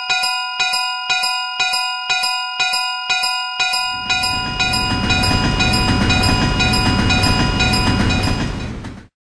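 Railroad crossing warning bell clanging about twice a second. From about four seconds in, a train rumbles through over the bell. Both cut off abruptly near the end.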